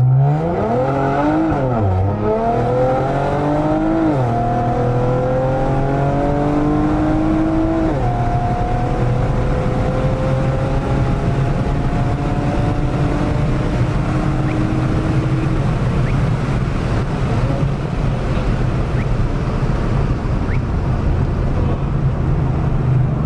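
Modified Infiniti Q50, with catless downpipes and a custom exhaust, accelerating flat out from a standstill, heard from inside the cabin. The engine note climbs through the gears, dropping in pitch at upshifts about 2, 4 and 8 seconds in, then makes a long, slower climb in a higher gear. After about 15 seconds the climb gives way to steady engine and road noise.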